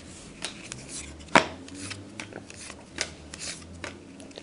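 Glossy trading cards being flipped and slid against one another by hand: a string of short swishes and taps, with one sharper snap about a second and a half in.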